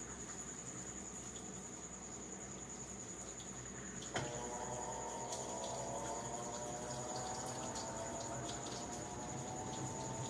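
GE King Capacity top-load washing machine: a sharp click about four seconds in, then water rushing through it with a set of tones that slowly rise in pitch.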